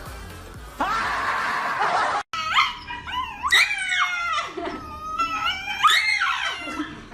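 A dog making several long, pitched calls that glide up and down in pitch. They follow a second of hiss that cuts off abruptly.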